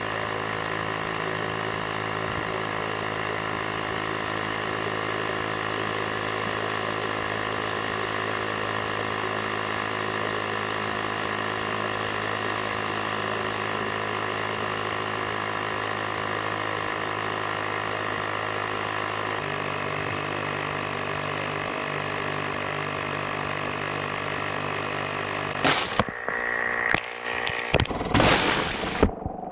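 Steady motorised hum, most likely an air pump pressurising a water rocket while bubbles rise through the water in the bottle. Its lower notes shift about two-thirds of the way through, and near the end the sound breaks off abruptly into short choppy pieces.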